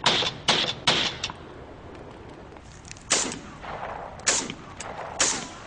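Gunshots fired singly: four in quick succession in the first second and a half, the last one faint, then three more spaced about a second apart, each crack trailing off with a short echo.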